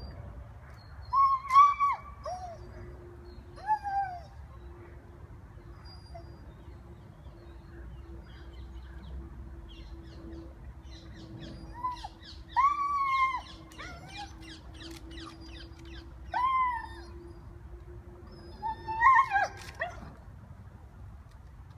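Rhodesian Ridgeback whining and yelping at a squirrel up a tree, in about five bouts of short high cries that rise and fall in pitch, the excited 'talking' of a dog kept from its quarry. A faint steady hum lies underneath.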